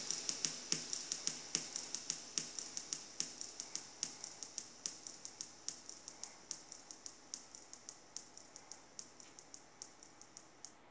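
Quick, slightly uneven high clicks, about four or five a second, left over at the end of the music track and fading away until they stop near the end.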